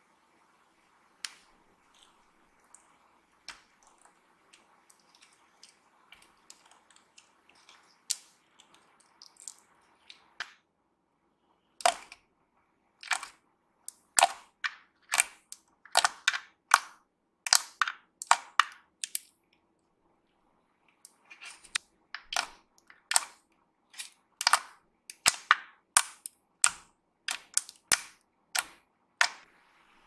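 Clicky slime made with castor oil, pressed and poked with fingers: loud, sharp clicks and pops as pockets of trapped air burst, coming one to two a second through the second half with a short pause in the middle of that stretch. Before that, only faint scattered clicks as the slime is worked with a spatula.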